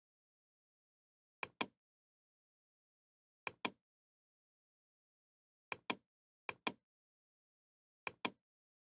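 Computer mouse clicking: five quick pairs of sharp clicks spread irregularly over the stretch, with dead silence between them.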